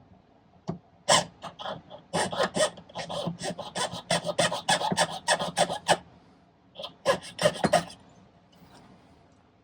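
Jeweler's saw cutting into a sterling silver wire link, in quick rasping strokes about four a second, stopping and then a short second run of strokes.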